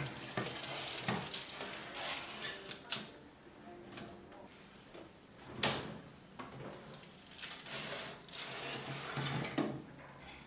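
Kitchen handling noises: irregular knocks, clinks and short scrapes of a baking tray and utensils, with the sharpest knock about halfway through.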